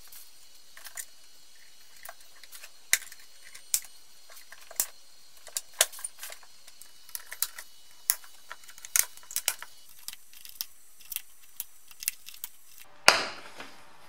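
Hard plastic parts of a BMW E30 heater/air-con housing clicking and knocking as they are handled and fitted together, with irregular sharp clicks and one louder clack near the end.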